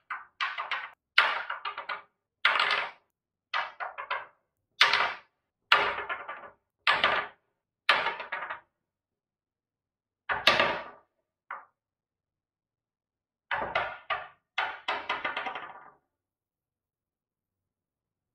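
Mokuru-style fidget roller, a plastic cylinder with rubber ends, being flipped and landing on a wooden table: about a dozen separate knocks, roughly one a second, with a short pause past the middle, stopping a couple of seconds before the end.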